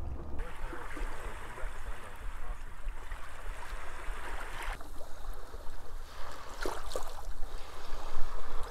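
Small waves lapping and washing over sand and pebbles at the edge of a beach, with a few small splashes.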